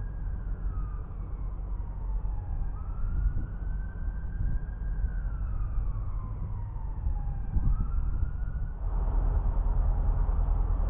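Emergency vehicle siren wailing in slow rising and falling sweeps, over the steady low rumble of the narrowboat's engine. The siren stops about nine seconds in, and a louder even rushing noise takes over.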